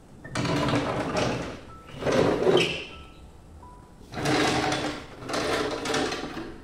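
Sliding glass window panes in a metal frame being pushed open along their tracks: four rough scraping slides of about a second each.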